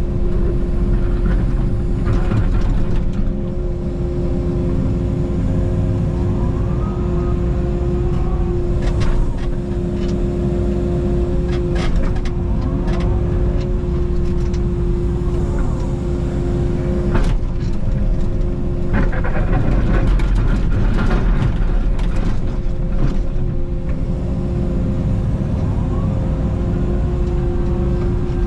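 Takeuchi TB290 mini excavator working: its diesel engine holds one steady pitch while the hydraulics whine up and down as the boom and bucket move, with scattered knocks and scrapes from the bucket in the dirt.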